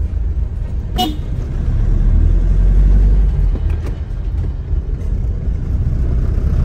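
Toyota HiAce van's engine and road noise as a steady low rumble inside the cabin while driving, with one brief sharp sound about a second in.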